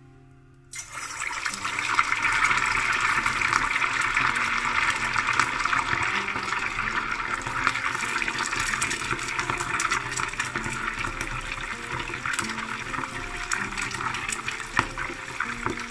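Chunks of marinated fish deep-frying in hot oil in a steel pot: loud, steady sizzling and bubbling that starts suddenly about a second in as the fish goes into the oil.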